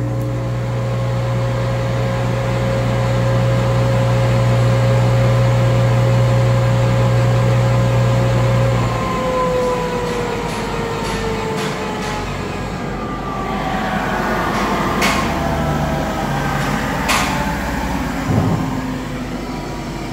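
Hollymatic 4000 mixer grinder's two-speed grind motor and gearbox running steadily at high speed with a strong hum. About nine seconds in the hum cuts out and the pitch falls as the machine winds down, followed by a few sharp clicks.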